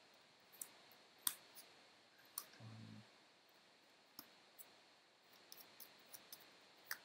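Faint, scattered clicks and taps of cards and plastic game counters being picked up and set down on a tabletop playmat. The clicks come closer together in the last couple of seconds.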